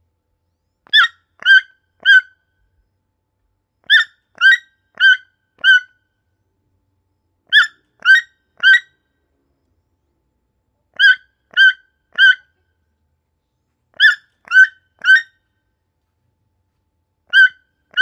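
Toucan calling: short, harsh, croaking calls given in runs of three or four, about two a second, with a pause of a couple of seconds between runs.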